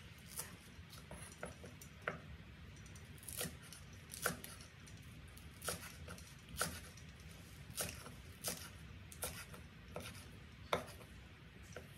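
Cleaver-style kitchen knife chopping green vegetable stalks on a wooden chopping board: single sharp knocks of the blade on the wood, unevenly spaced at about one a second.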